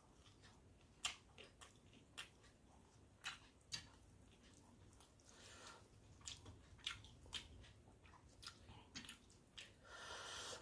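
Faint close-up chewing of panta bhat, water-soaked rice, with a scatter of sharp mouth clicks and smacks. Near the end comes a short wet squishing rustle.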